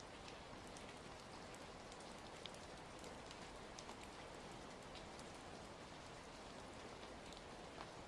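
Steady rain falling, with scattered faint sharp crackles from a wood fire mixed in.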